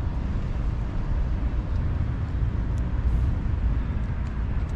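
Wind rumbling on the microphone of a walking camera, a steady low rumble with faint outdoor background noise under it.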